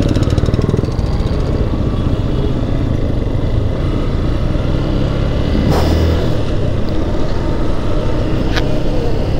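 Motorcycle on the move, its engine running under a steady low rush of wind and road noise on the helmet-mounted microphone. A sharp knock about six seconds in, and a lighter click near the end.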